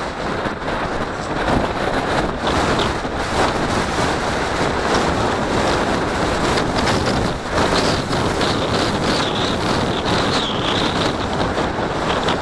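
Wind buffeting the camera microphone: a steady, dense rushing noise with no letup.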